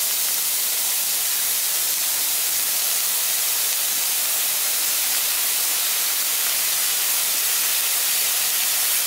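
Broth mixture sizzling steadily in a hot pan with garlic and ginger, the liquid hissing as it hits the hot oil.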